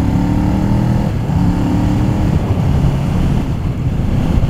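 Sport motorcycle engine running under way, its note breaking off briefly about a second in and again past the two-second mark. In the second half it is swamped by steady wind rush on the microphone.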